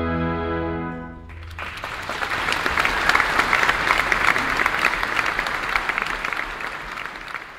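An orchestra holds a final sustained chord that cuts off about a second in, then an audience breaks into applause that swells and slowly tapers off.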